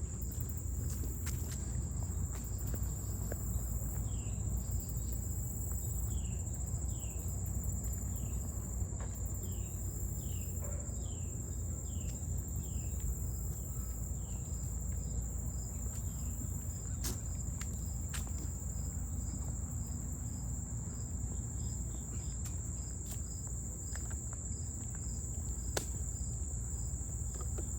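Late-summer insects, crickets or katydids, holding a steady high-pitched drone, with a run of short falling chirps about twice a second that starts a few seconds in and stops about halfway through, over a low steady rumble.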